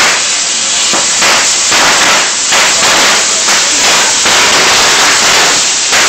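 Fireworks crackling and hissing: a loud, steady, dense crackle of small pops.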